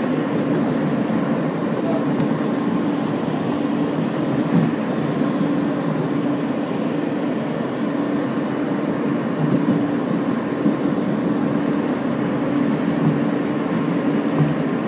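R160 subway car running between stations, heard from inside the car: steady wheel and motor noise with a low steady hum.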